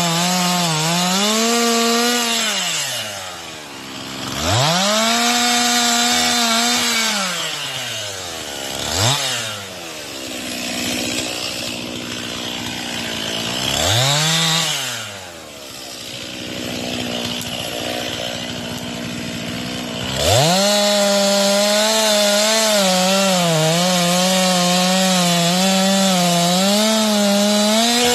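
Stihl MS 261 two-stroke chainsaw cutting wood during tree felling. The engine runs up to full throttle in several bursts, the longest near the end, and drops back toward idle in between. Its pitch wavers under load in the cut.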